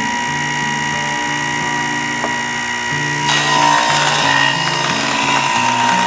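Background music with a stepping bass line that changes note about every half-second, over a steady high hum. About three seconds in the music grows fuller and brighter.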